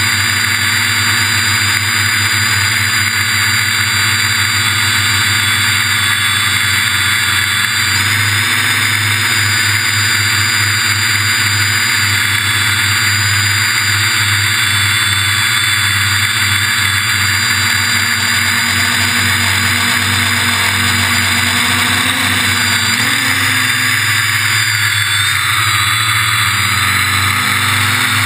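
Quadcopter's electric motors and propellers buzzing steadily as heard from the onboard camera, with the pitch shifting a little about three-quarters of the way through as the throttle changes.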